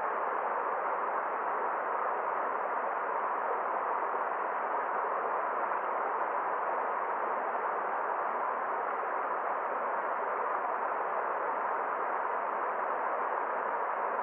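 Forest stream running: a steady, even rush of water, somewhat dull, with no distinct splashes or other events.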